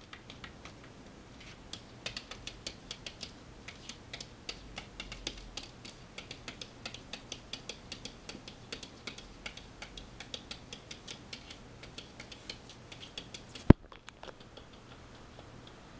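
Kitten's paws and claws tapping and scratching against mirror glass as it bats at its reflection: a rapid run of light clicks, several a second, starting about two seconds in. Near the end comes one sharp, much louder knock.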